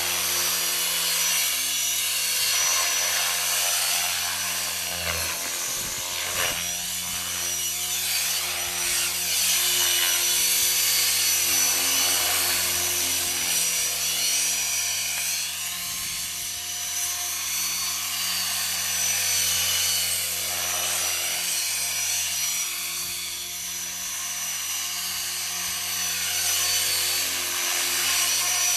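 ALIGN T-Rex 500 Pro DFC electric RC helicopter in flight: the high steady whine of its brushless motor and drive gears over the rotor noise. Pitch and loudness swell and sweep a few times as it moves about.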